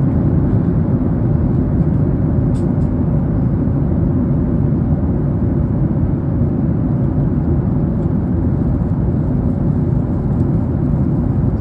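Steady low rumble.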